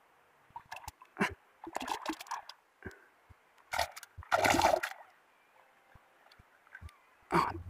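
Shallow water splashing and sloshing in several separate bursts, the loudest about halfway through.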